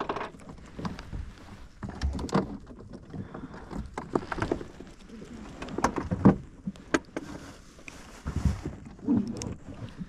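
Irregular knocks, taps and a few heavier thumps as fishing tackle and freshly caught horse mackerel are handled against the tube of an inflatable boat while the fish are taken off a multi-hook rig.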